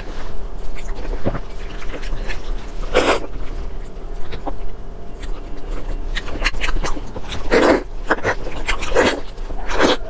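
Close-miked eating of sticky braised pig's trotter: wet chewing and lip smacks, with several louder slurps about 3 s in and three more near the end.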